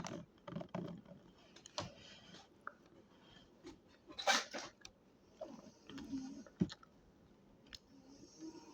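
Scattered small clicks and mouth noises of someone eating bread, with one brief, louder noise about four seconds in.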